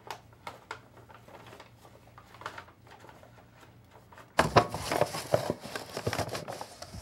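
Brown paper bag rustling and crinkling loudly as a hand rummages inside it, starting about four and a half seconds in; before that only a few faint handling clicks.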